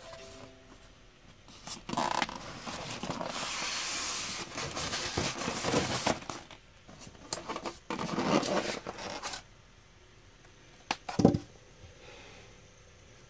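Cardboard box and polystyrene foam packing being handled: the foam case is pulled out of the box and its lid lifted off, in irregular bursts of rubbing and scraping. A single sharp knock comes near the end.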